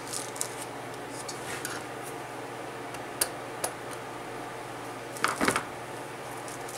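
Small metal clicks and clinks of a valve spring compressor and valve keepers being worked on an LS cylinder head while a valve spring is compressed and its keepers set. Two sharp clicks about three seconds in, and a louder cluster of clinks about five seconds in.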